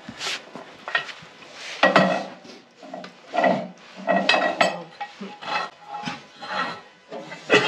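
Irregular wooden knocks, metal clanks and scraping as a maple block is rolled over with peaveys on the steel bed of a Wood-Mizer LT15 sawmill. The loudest knock comes about two seconds in.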